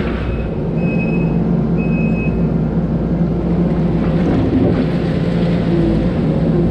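Kubota SVL90-2 compact track loader's diesel engine running steadily under load while moving gravel, with a few short high beeps in the first two seconds.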